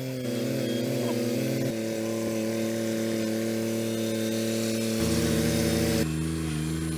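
Kubota BX23S sub-compact tractor's three-cylinder diesel engine running under the load of the backhoe hydraulics, its note shifting in sudden steps a few times as the controls are worked.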